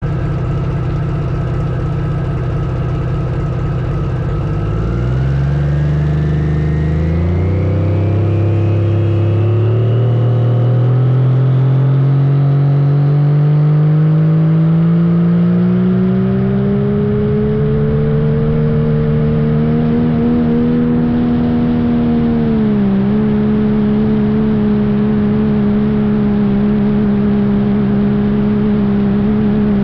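Turbocharged Cummins diesel in a Dodge Ram pull truck, running steadily at first, then climbing in revs for about fifteen seconds with a rising turbo whistle. The revs dip briefly once, then hold high and steady at full throttle under the load of the pull.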